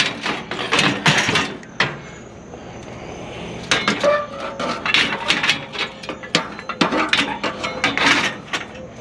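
Bed frames being handled: a string of knocks, clanks and rattles, one cluster at the start and a longer one from about four seconds in.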